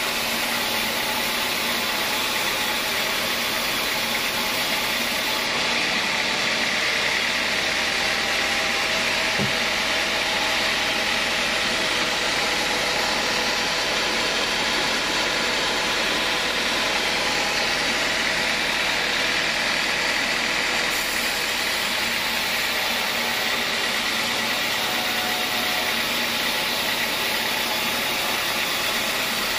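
Band sawmill ripping a beam of acacia hardwood: a steady motor hum and the continuous noise of the band-saw blade in the cut. A deeper hum runs underneath through the middle stretch.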